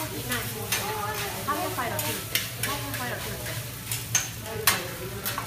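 Metal spatulas clacking and scraping on a teppanyaki griddle as fried rice is chopped and turned, over the sizzle of the rice frying. The taps come in an irregular run, with one sharp clack loudest near the end.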